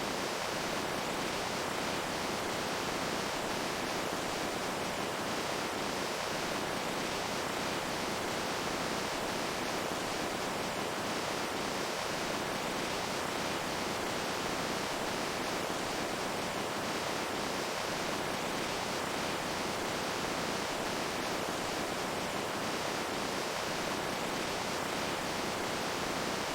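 Running water making a steady, even rushing sound that does not change.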